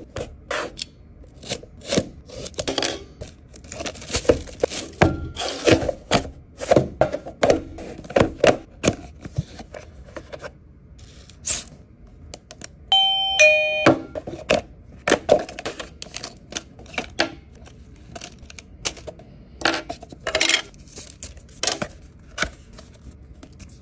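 Many scattered small clicks and knocks, with a two-note ding-dong doorbell chime about halfway through: a higher note then a lower one, about a second in all.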